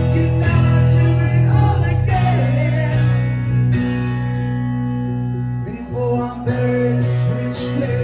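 Live duo music: strummed acoustic guitar over a bass guitar, with a chord held ringing in the middle and a brief drop in the playing about six seconds in.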